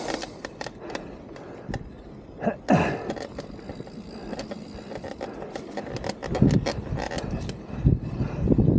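Mountain bike rolling fast over a dirt and leaf-littered trail: tyre noise with many sharp clacks and rattles from the bike over bumps, and wind buffeting the camera microphone in heavy low gusts over the last few seconds.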